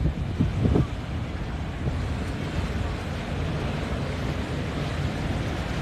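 Wind noise on the microphone over a steady low rumble of boat traffic and water at an inlet.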